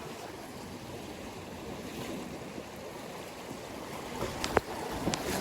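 Sea waves washing onto a rocky shore at a rising tide, a steady wash that slowly grows louder, with a few sharp clicks near the end.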